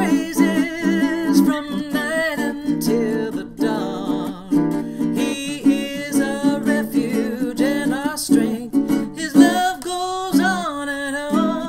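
Ukulele playing a blues accompaniment, with two layered parts, under a woman's wordless singing that wavers and bends in pitch.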